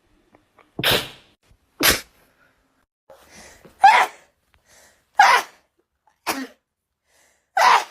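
A young woman sneezing repeatedly in an allergy sneezing fit, about six sneezes in a row. The first two are short and sharp. The later ones are louder and voiced, with a drawn-in breath before the third.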